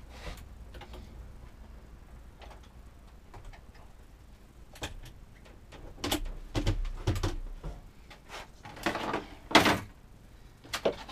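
Handling noises at a workbench: scattered clicks, knocks and short rustles and scrapes as objects are picked up and set down, busier from about six seconds in, with the loudest knock about nine and a half seconds in.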